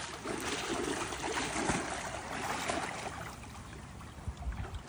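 Shallow stream water sloshing and splashing around people wading and working their hands in it, louder for the first three seconds, then settling to a quieter flow.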